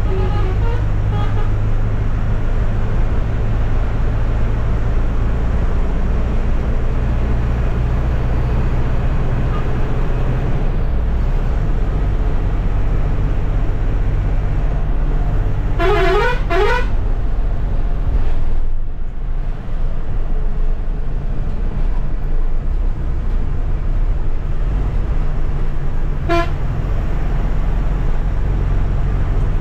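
Ashok Leyland AC sleeper bus driving at speed, heard from the driver's cabin: a steady engine drone with road noise. A horn gives two quick toots that rise in pitch a little over halfway through, and one short toot near the end.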